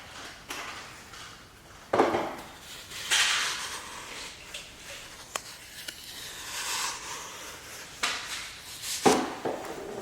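Dry powder mix of washing soda, baking soda, citric acid and salt being stirred in a container: irregular scraping and rustling, with a few sharp knocks of the utensil against the container.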